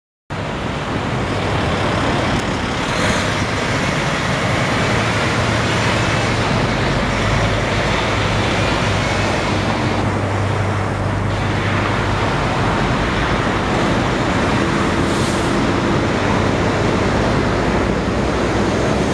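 Highway traffic on wet pavement: a steady hiss of tyres with the low drone of a Kenworth T700 tractor-trailer's diesel engine as it rolls past.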